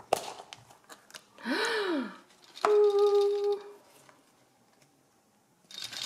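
A plastic surprise capsule being handled: a sharp click as its halves come apart, then a short tone that swoops up and falls, a held steady note of about a second, and a rustle near the end as its sealed plastic bag of parts is lifted out.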